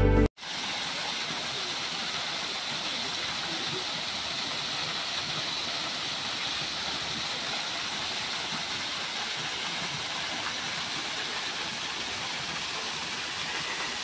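Garden waterfall spilling over stacked boulders and splashing into a rock pool: a steady rush of falling water. A snatch of background music cuts off abruptly right at the start.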